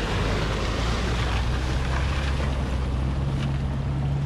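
Mercedes-Benz SL convertible driving through a shallow ford: its tyres splash and hiss through the water over a low, steady engine note.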